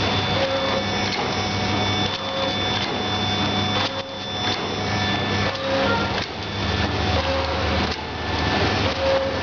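Vertical form-fill-seal sachet packing machine with an auger powder filler running: a steady motor hum with a mechanical cycle that repeats about every second and a half to two seconds.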